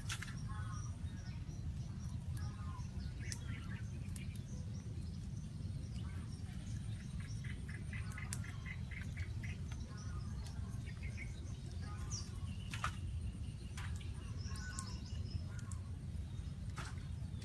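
Birds chirping and calling on and off, including a quick run of repeated notes about midway, over a steady low rumble, with a few sharp clicks.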